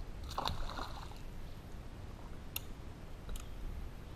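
Handling noise from an angler working a rod and reel: a short rustle in the first second, then two light sharp clicks about a second apart, over a low steady rumble.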